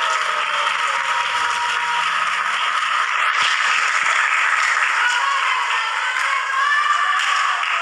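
Arena crowd cheering and applauding, a steady dense wash of voices and clapping.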